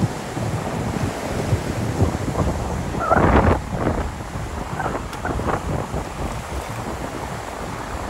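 Wind gusting across the microphone over surf breaking on the beach, with a brief louder sound about three seconds in.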